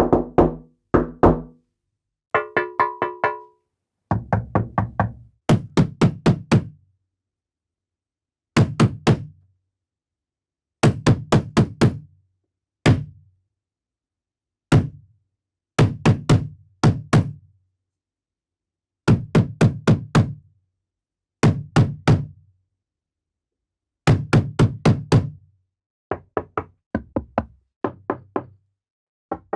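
Knocking on a door: short bursts of two to six quick raps, each burst cut off by complete silence before the next, at varied speeds and loudness. Most are deep, dull knocks; one quick burst near the start has a higher, ringing tone.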